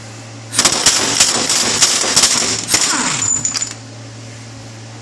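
Air impact wrench (AIRCAT 1000-TH) hammering on a BMW E39's rear axle hub nut, a loud rapid metallic rattle that starts about half a second in and runs for about three seconds before stopping as the nut breaks loose.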